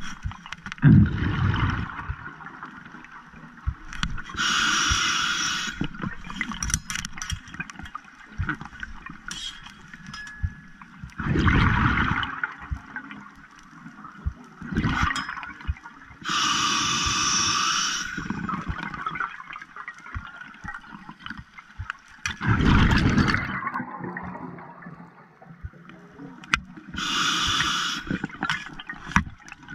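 Diver breathing underwater through a scuba regulator: regular rushing, bubbling breaths every few seconds, alternating higher hissing ones and deeper bubbly ones, with small clicks and knocks in between.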